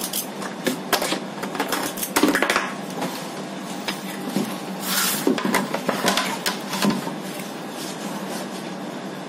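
Kitchen clatter of metal utensils and bakeware being handled: a metal batter scoop clinking against a stainless steel pot and moulds, and trays knocking and scraping on a metal baking sheet. Scattered clinks and knocks, loudest about two seconds in, with a longer scraping clatter around the middle.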